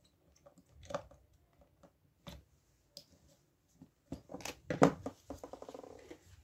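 Small screwdriver and plastic speaker casing clicking and tapping as the screws of a mini wireless speaker's cap are tightened, with a louder cluster of clicks and a quick run of ticks about four seconds in as the speaker is lifted and turned over.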